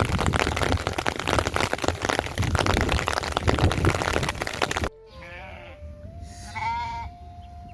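Heavy rain pouring down, cutting off suddenly after about five seconds. Then, much quieter, an animal bleats twice.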